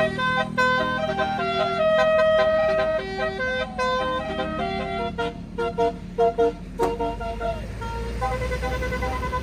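A tour bus's multi-tone 'telolet' horn plays a tune of short stepped notes, several horn tones sounding together. The bus's engine runs underneath, and its low rumble grows near the end.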